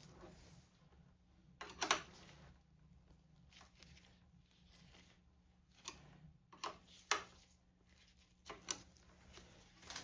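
Scattered short clicks and handling noises of hand work on the motorcycle's steering stabilizer mount: a cluster about two seconds in, then several more in the second half.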